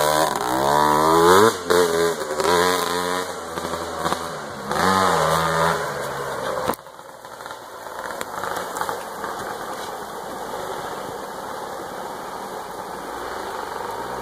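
Off-road motorcycle engines revving hard, the pitch climbing and falling several times. About halfway through the sound cuts off abruptly to a quieter, steady rushing noise.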